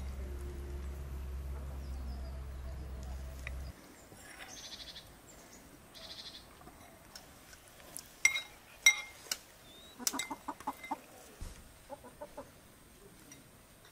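A low steady hum for the first few seconds, then spoons clinking sharply against ceramic bowls a few times, then hens clucking in short rapid runs near the end.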